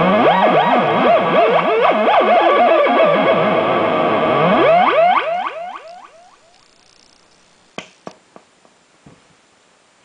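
Homemade joystick-controlled synthesizer playing warbling tones whose pitch swoops up and down with echo. About five seconds in, it turns into a quickening run of rising sweeps that fades out within about a second. A few faint clicks follow.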